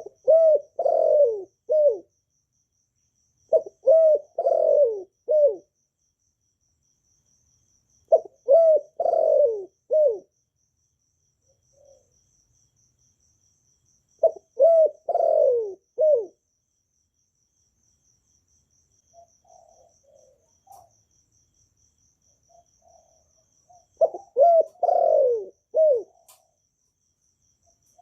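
Spotted dove cooing its song: five phrases of several deep, falling coo notes, each phrase about two seconds long and spaced a few seconds apart, with softer, shorter calls between the last two phrases.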